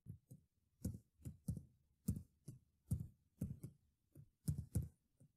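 Computer keyboard keys being typed: a string of separate key clicks at an uneven pace, about two or three a second, some in quick pairs.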